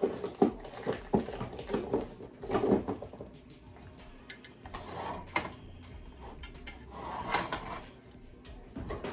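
A boy making silly animal-like vocal noises in short bursts, mixed with knocks and clatter from drawers and a pan being handled.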